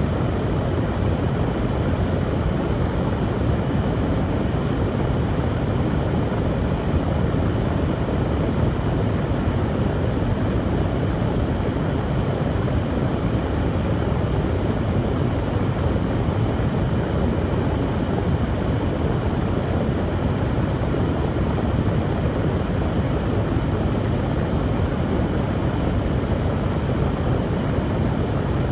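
Hair dryer running steadily: an even rushing blower noise, heavy in the low end, that does not change.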